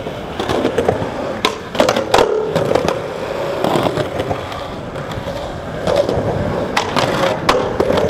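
Skateboard wheels rolling on smooth concrete, with several sharp clacks of the board hitting the ground.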